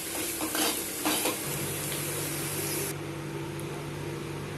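Spiced potato pieces sizzling in hot oil in a pan, with a few sharp clicks of a spatula against the pan in the first second or so. The sizzle cuts off suddenly about three seconds in, leaving a low steady hum.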